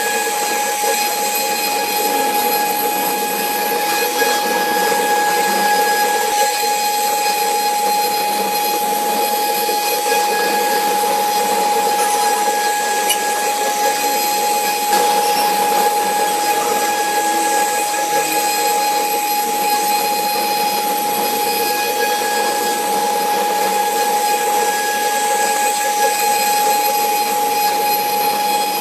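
CNC router running and cutting: a steady, high whine over continuous machining noise, unchanging throughout.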